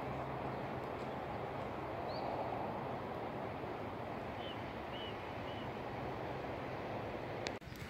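Steady rumble of a train running along the track, with a low hum that fades out about a second in. A few faint bird chirps sit over it, and the sound cuts off suddenly near the end.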